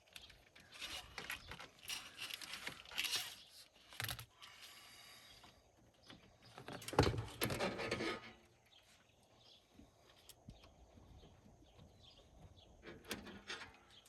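Braided stainless steel gauge line being fed and pushed through a truck's engine bay, with scattered clinks and scrapes of metal on metal and a louder scuffle about seven seconds in.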